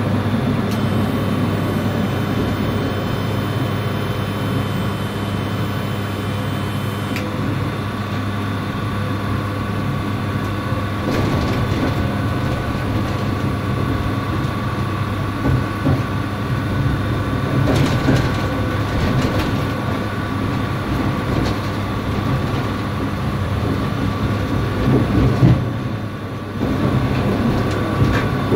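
Tram running along its track: a steady hum with a constant tone over it, and a few short knocks along the way.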